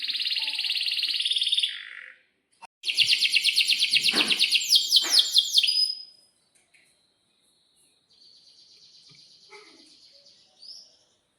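Domestic canary singing long, rapid rolling trills: a trill at the start, a louder fast trill from about three to six seconds in, then a quieter trill ending in a short rising note.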